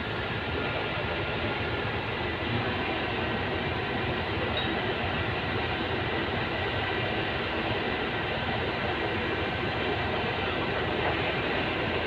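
Vibratory pile hammer running continuously as it drives a concrete sheet pile: a steady, dense mechanical rattle and drone with no let-up.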